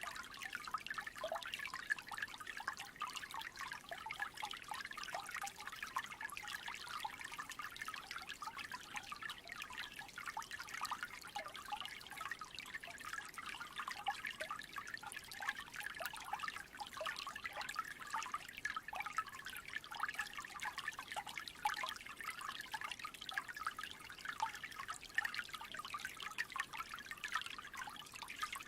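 Creek trickling steadily: a continuous fine babble of running water.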